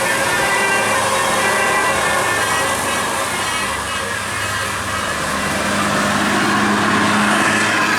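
A large bus's engine running as it passes, with steady road-traffic noise and a low drone that grows louder about six seconds in.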